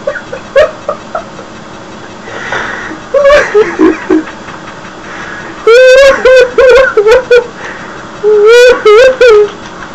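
A person laughing loudly in two bouts of rapid, evenly spaced "ha" syllables, the first about six seconds in and the second near the end, with a shorter falling vocal sound a little over three seconds in.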